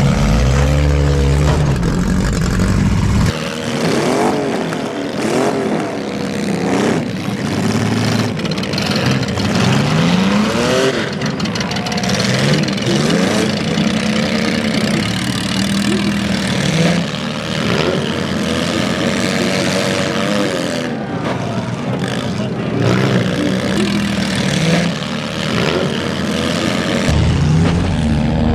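Several demolition derby car engines revving up and down at once, their pitch rising and falling repeatedly, with occasional sharp knocks.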